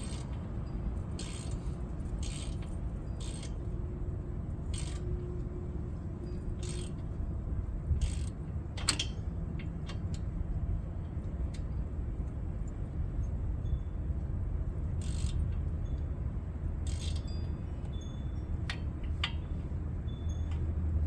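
Scattered light metallic clinks and rattles of hand tools and brake hardware being handled while caliper bolts are threaded in, over a steady low hum.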